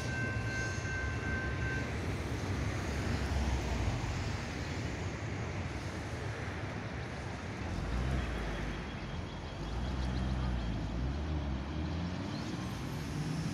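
Level crossing warning bell ringing and stopping about two seconds in, then road traffic: cars idling and pulling away across the crossing, with one engine rising in pitch near the end.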